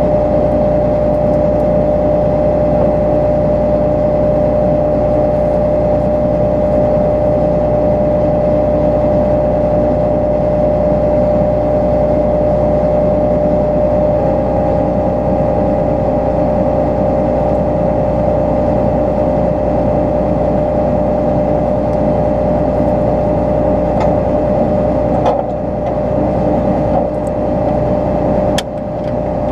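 John Deere 9500 combine running steadily with a constant droning hum, dipping briefly twice near the end.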